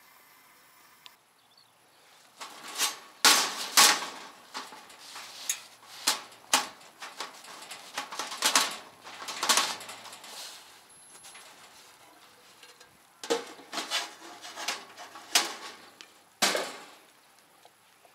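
A metal bread tin knocking and clanking against the steel top of a Coleman camp oven as the baked loaf is worked out of it: a dozen or so irregular sharp metallic knocks, the loudest a few seconds in.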